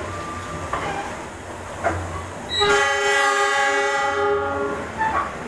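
Train horn sounding one steady blast of about two seconds, starting about halfway through, over the low rumble of a passenger coach rolling along the rails.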